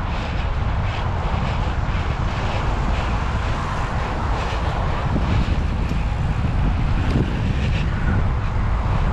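Strong gusting wind buffeting the microphone as a low, steady rumble while the bike is ridden up to speed.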